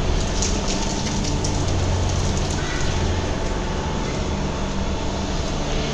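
Milking parlour machinery running with a steady hum and hiss, with no distinct knocks or changes.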